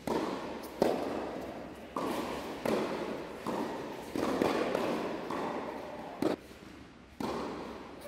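A tennis rally in a large indoor hall: about nine sharp pops of the ball off rackets and the court, each followed by a long echo.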